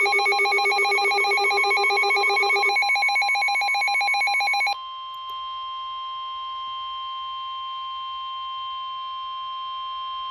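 Emergency alert tones: a loud, rapidly pulsing ringing alarm of several tones at about ten pulses a second. About five seconds in it drops to a quieter steady tone, the attention signal that comes before a severe thunderstorm warning is read out.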